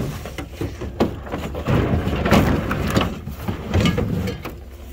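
A large metal microwave oven being shoved and slid into a pickup truck's bed: a run of irregular knocks, bumps and scraping, busiest in the middle and easing off near the end.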